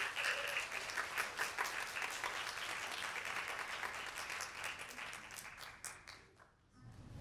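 Audience applauding, dense clapping that fades away about six seconds in.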